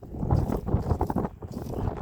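Wind buffeting the microphone outdoors: an irregular, gusty low rumble that swells and drops.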